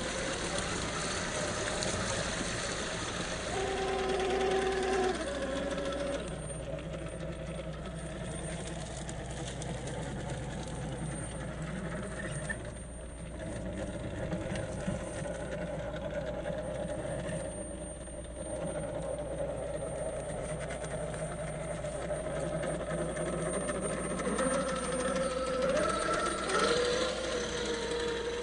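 Axial SCX10 III RC crawler's 2300kv electric motor and gearbox whining as it crawls over rock, the pitch rising and falling with the throttle and climbing again near the end.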